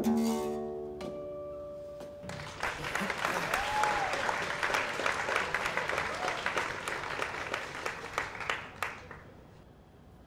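Final chord strummed on an acoustic guitar and an acoustic bass guitar, ringing out and fading over about two seconds. An audience then applauds for about six seconds and dies away near the end.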